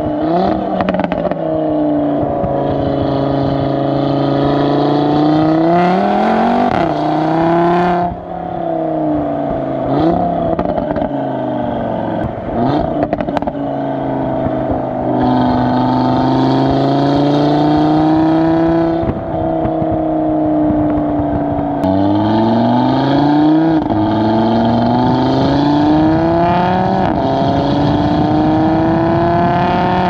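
Audi RS3 8V's Stage 2 tuned, turbocharged 2.5-litre five-cylinder engine and exhaust, heard close to the tailpipe while driving hard. The engine note climbs with revs and drops at each gear change or lift of the throttle, several times over.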